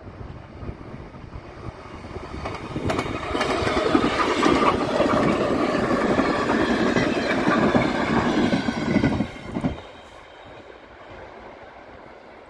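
ER2T electric multiple unit passing close by at speed. The running noise of the train builds from about two seconds in, is loud for about six seconds as the cars go past, then falls away quickly as the train moves off down the line.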